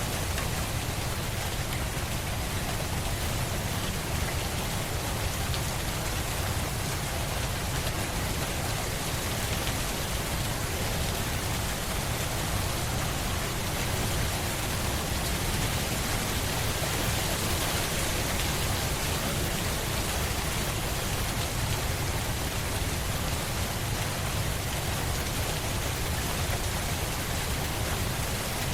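Steady, even rain falling, a continuous hiss of drops with a low rumble beneath, unchanging throughout.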